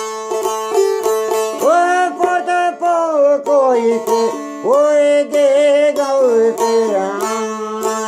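Long-necked lute strummed quickly over a steady drone note. A man sings Albanian folk-style over it from about two seconds in, in two long held lines with wavering, ornamented pitch.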